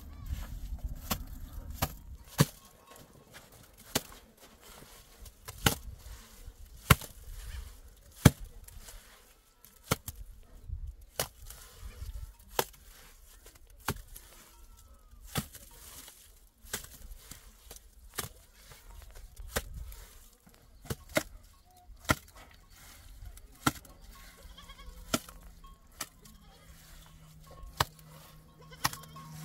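Irregular sharp knocks and slaps, about one every second or so, from hand work on wet concrete and stone in the floor of a dug pit.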